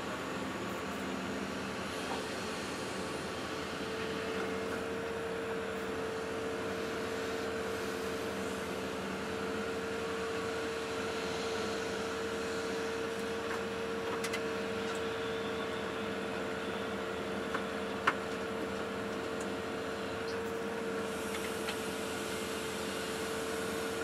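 Excavator running, heard from inside the cab: a steady mechanical hum with one constant tone while the boom and bucket work a sand slope. A single sharp click about eighteen seconds in.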